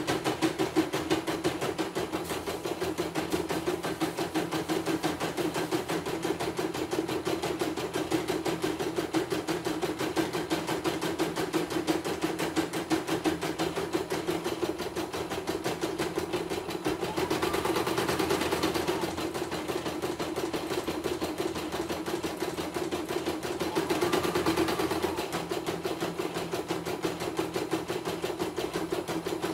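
CNY E900 portable embroidery machine stitching a design: a fast, even clatter of needle strokes. Twice, at about 17 and 24 seconds in, it briefly grows louder with a short whine.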